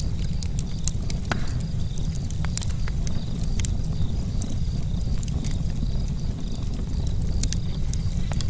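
Camp charcoal fire crackling, with irregular sharp pops and ticks over a steady low rumble.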